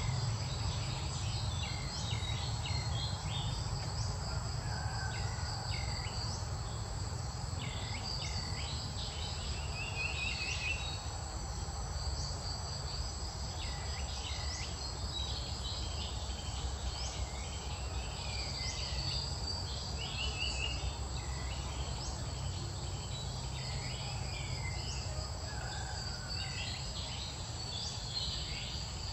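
Outdoor insect chorus, a steady high trill, with frequent short high chirping calls scattered over it and a steady low rumble underneath.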